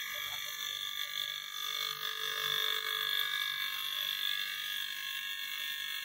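Steady high hiss with a faint buzz running through it.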